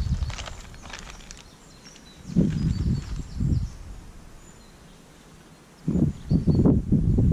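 Compost pouring out of a plastic bag onto soil, trailing off just after the start. Then come two spells of low, muffled thuds and rustling as the compost is handled and spread by hand, the second spell louder, near the end.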